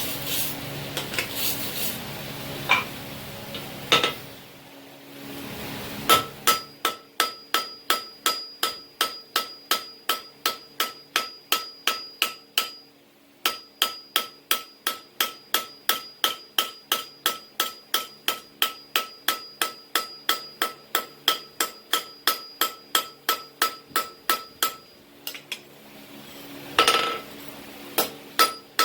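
Hammer blows on hot leaf-spring steel at the anvil: a long steady run of about three strikes a second, each with a bright metallic ring. A few knocks over a rushing noise come before the hammering starts, and the strikes break off briefly near the middle and again near the end.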